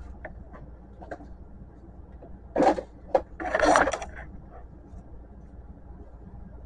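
Plastic printer housing being handled and lifted open: a few light clicks, then two short scraping rustles of plastic, about two and a half and three and a half seconds in.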